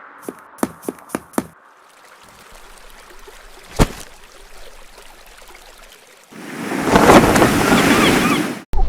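Added cartoon sound effects: a quick run of about five clicks, a single sharp hit a few seconds later, then a loud rushing noise that starts about six seconds in and cuts off abruptly near the end.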